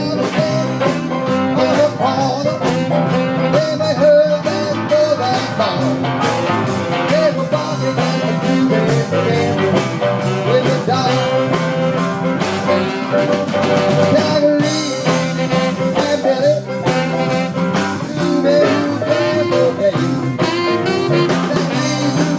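Live band playing a blues-rock number, with drum kit, electric bass guitar and guitar.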